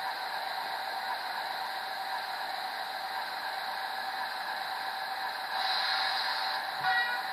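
Train Tech SFX20 sound unit in an O gauge model locomotive playing a synthesized diesel locomotive sound through its small speaker: a steady hiss with whistling tones. The hiss brightens for about a second in the last third, and a short louder burst with several tones follows just before the end.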